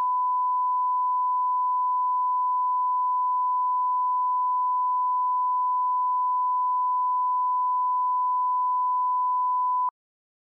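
Steady 1 kHz line-up test tone, the reference tone laid under SMPTE colour bars, holding one pitch and cutting off abruptly near the end.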